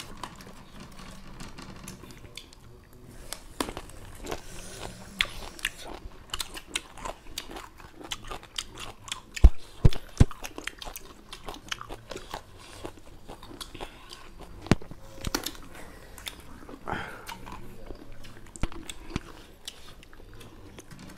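Raw lemon pieces being bitten and chewed close to the microphone: many short wet clicks and crunches, scattered irregularly, with a few louder ones about halfway through.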